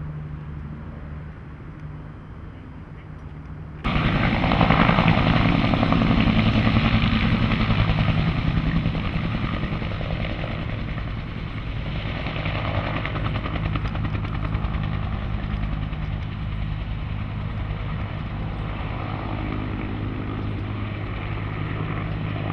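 Firefighting helicopter flying overhead, its rotor chopping fast and even. It comes in suddenly and loud about four seconds in, after a quieter low hum, and eases a little partway through.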